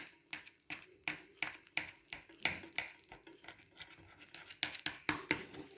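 A knife cutting through a baked lasagna, its blade scraping and tapping against the bottom of the baking dish in a run of short, sharp scrapes, about three a second.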